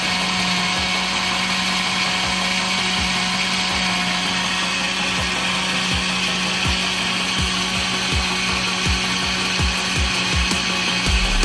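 Electric countertop blender with a glass jug running steadily at speed, its motor giving a constant hum as it blends a liquid cake batter of eggs, sugar, oil, yogurt and cream.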